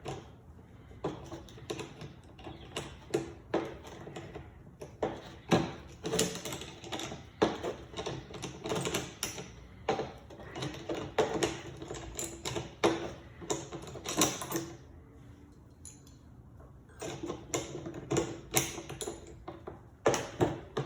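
Irregular clicks and knocks of hand tools working screws and parts into a chainsaw's new plastic handle, with a short lull after the middle.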